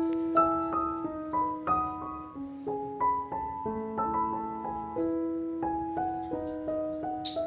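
Background piano music: a slow melody of sustained notes, with a brief sharp click near the end.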